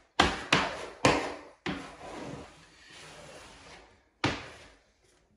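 Wallpaper being pressed and smoothed into the baseboard edge with a hand tool: a run of sharp paper rustles and scrapes, four close together in the first two seconds and one more after about four seconds.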